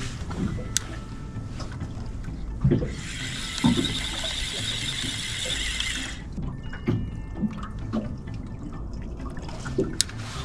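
Spinning reel whirring for about three seconds, starting and stopping abruptly a few seconds in, as the rod is worked with a metal jig. A few soft low knocks sound underneath.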